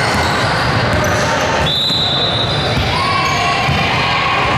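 Basketball game in a gym: the ball bouncing on the court amid voices echoing around the hall, with short high squeals; one high squeal lasts about a second, a little under halfway in.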